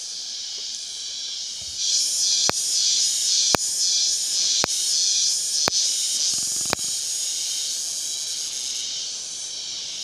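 A high-pitched chorus of forest insects buzzing. It swells into a louder, pulsing drone about two seconds in and eases off after about seven seconds. Over the loud stretch come five sharp clicks, about a second apart.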